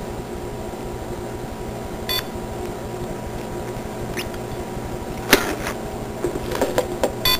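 Steady electrical hum of several even tones. A short electronic beep comes about two seconds in, and light clicks and taps in the second half, the sharpest about five seconds in, come from handling small devices on a countertop.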